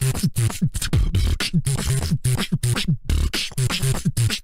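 A beatboxer freestyling: a fast, dense run of mouth-made kicks, snares and clicks over short low bass notes that bend up and down in pitch.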